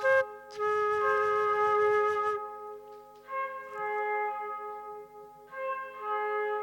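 Flute playing long, held notes in short phrases, breathy at first, the notes ringing on and overlapping.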